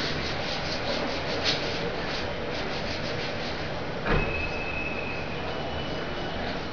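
Chalkboard duster rubbing chalk off a blackboard in quick strokes, about four or five a second. The rubbing stops after about three and a half seconds and is followed by a single knock, the loudest sound, and then a thin steady high tone.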